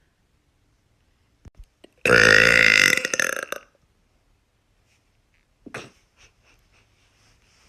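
A woman's long, loud burp, starting about two seconds in and lasting about a second and a half, with a few faint clicks before and after it.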